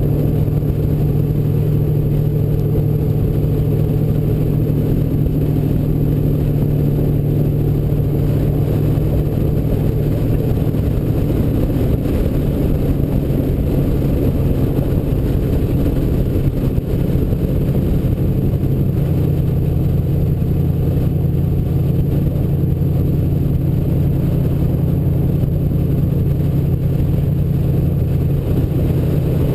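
Ford Bronco off-road race truck's engine running steadily under way. Its pitch shifts a little twice, about twelve and nineteen seconds in.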